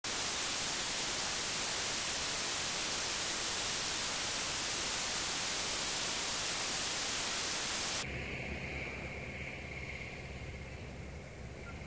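Steady hiss of white-noise static, like a detuned analog TV, for about eight seconds, cutting off abruptly. It gives way to a quieter steady low hum with a faint high tone.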